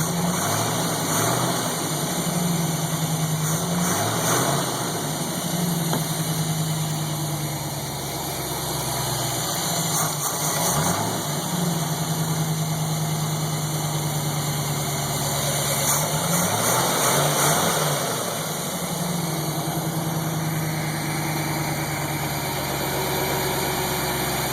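Chevrolet 283 small-block V8 idling, with the revs rising briefly a few times. It is running cold, when it makes a tick/knock that the owner suspects may be piston slap and that goes away once the engine warms.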